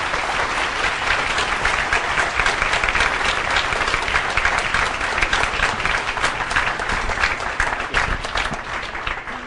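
Lecture audience applauding, a steady clapping that thins out near the end.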